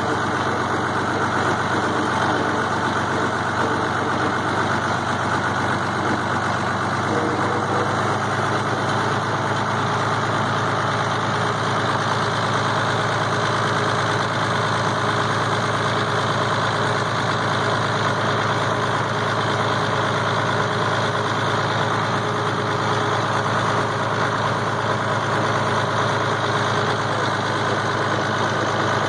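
International Harvester tractor engine running steadily under way, heard from the driver's seat just behind its vertical exhaust stack.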